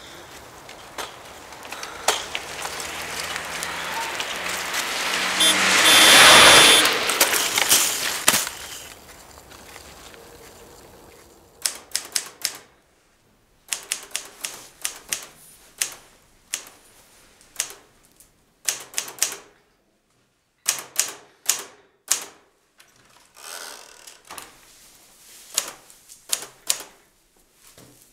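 A rush of noise swells to a loud peak about six seconds in and fades away. From about twelve seconds on, a manual typewriter is typed in short bursts of sharp keystrokes with pauses between them.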